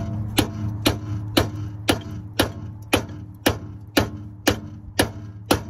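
A hammer strikes a steel impact socket in steady blows, about two a second, driving it onto a rusted axle bolt head that rust had kept the socket from fitting. A steady low hum runs underneath.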